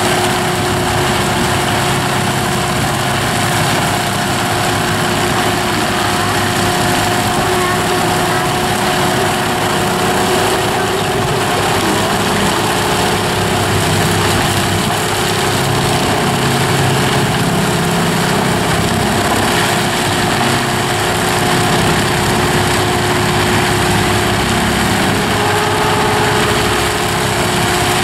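Tractor-driven forestry mulcher milling standing poplars and brush into the soil: the tractor engine running under steady load and the toothed rotor grinding wood and earth, a loud continuous grinding with a steady whine over it.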